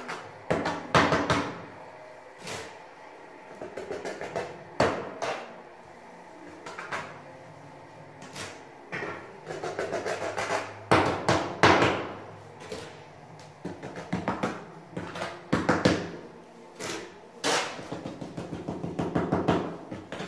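Small steel trowel scraping and working through a thick bed of flowable tile adhesive. There are irregular strokes and knocks, some in quick runs of several strokes.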